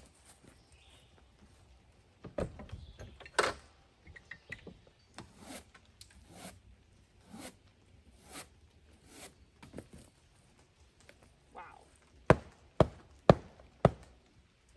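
Knocks and rustles of things being shifted about in a vehicle's cargo area, then four sharp smacks about half a second apart as a mat pulled from it is beaten to knock the dirt out.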